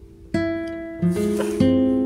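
Background acoustic guitar music, chords struck and left to ring, a new chord about every half second to second.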